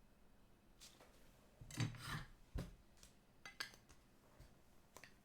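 Trading cards being handled on a table: a brief rubbing, sliding sound about two seconds in, then a light knock and a few soft clicks.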